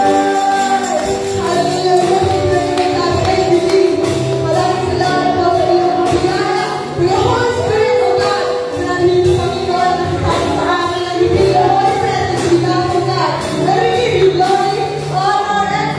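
A woman singing a song into a microphone, backed by a live band of electric guitars, bass and drums keeping a steady beat.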